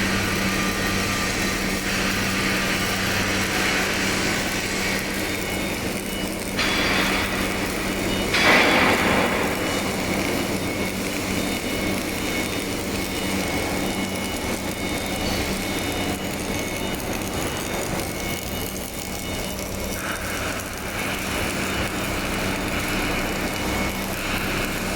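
Pipe welding machinery running steadily: a continuous hiss over a constant low hum, with two louder rushes of noise about 7 and 9 seconds in.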